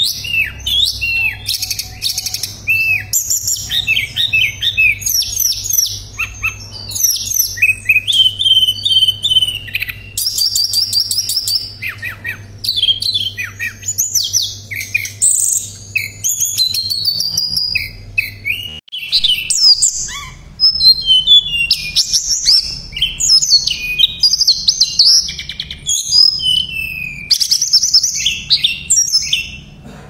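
A caged tledekan pring songbird singing without pause: fast, varied phrases of loud high whistles, slurred notes and rapid trills. A faint low hum runs underneath.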